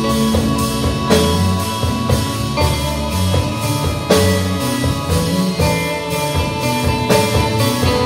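Slow instrumental rock played live by a trio: electric guitar (a Fender Stratocaster) ringing out sustained notes over bass guitar and a drum kit keeping a steady beat.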